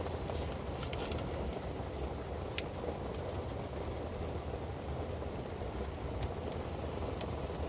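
Steady rain falling, with a few sharp drop taps heard now and then over a low, steady rumble.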